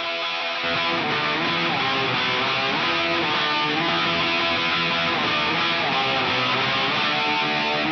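Background music with strummed guitar, the bass coming in about half a second in.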